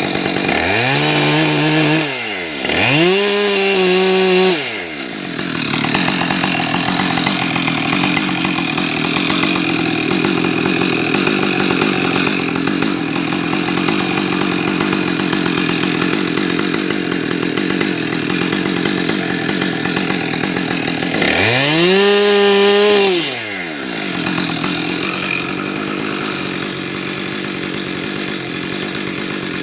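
Chainsaw revved up and back down twice near the start and once more about three quarters of the way through. In between it runs steadily and roughly as it cuts through wood.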